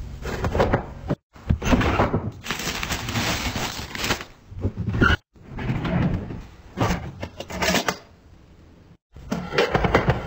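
Kitchen handling noise: a cupboard and a stack of plates being handled, with clattering and rustling in separate bursts that stop and start abruptly.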